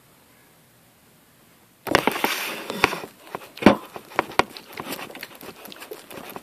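Crinkly plastic packaging rustling as it is handled, starting suddenly about two seconds in, with sharp clicks and knocks scattered through it, the loudest a little after halfway.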